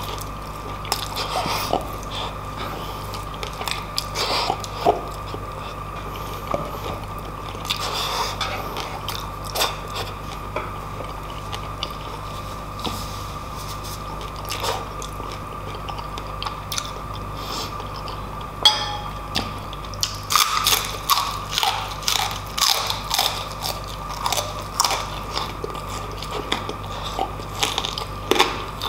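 Close-miked chewing of crispy fried pork belly (lechon kawali), with wet crunches and mouth clicks. The chewing is sparse at first and becomes quicker and busier about two-thirds of the way through.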